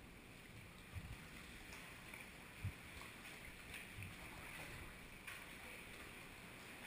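Faint water sounds around a sea kayak: small drips and splashes from the paddle and water lapping, with a few soft low knocks, the loudest about two and a half seconds in.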